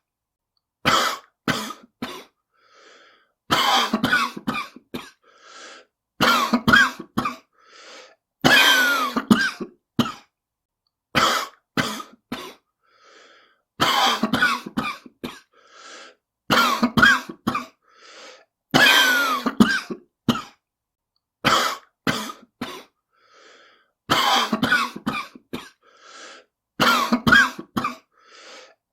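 A person coughing in repeated harsh fits, two or three coughs about every two and a half seconds, with quieter breaths between fits: a smoker's cough.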